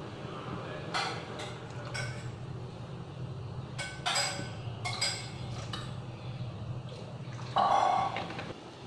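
Stainless steel pot clinking several times over a steady low rumble from the gas burner and the steaming water, with a louder ringing clink near the end.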